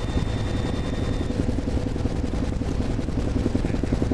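Helicopter in flight heard from inside its open-door cabin: a steady low drone of rotor and engine with a fast, even pulsing beat.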